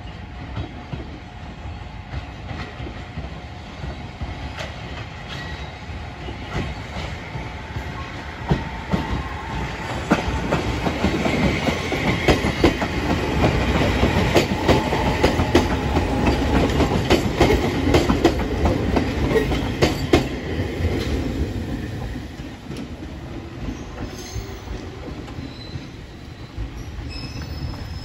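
Toyama Chihō Railway 14760 series electric train, set 7 with a Kuha 175 trailer, approaching and passing close by. Its wheels clatter over the rail joints. The sound builds about ten seconds in, is loudest for roughly the next ten seconds, then fades as the train moves away.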